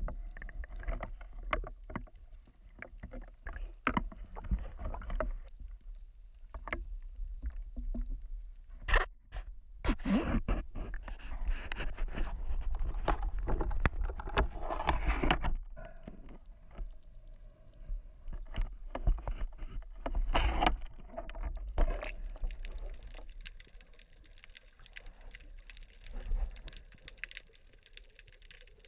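Muffled underwater sound of water rushing and sloshing around a camera, with many small knocks and clicks. The rushing grows louder for several seconds in the middle, then settles lower near the end.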